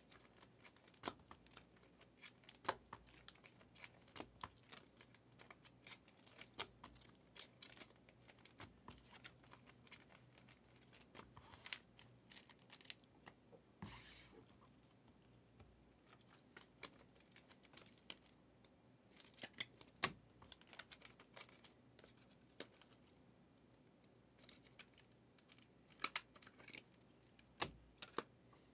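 Faint handling of trading-card packs and cards: scattered sharp clicks and taps, with a few short rustles of pack wrappers being opened.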